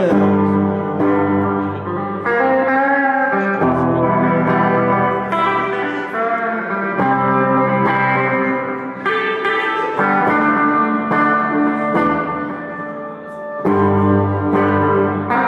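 Live band playing an instrumental break with no singing: a guitar carries the melody over bass and chords.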